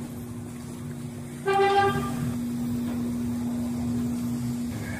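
A vehicle horn sounds once, briefly, about one and a half seconds in, over a steady low hum.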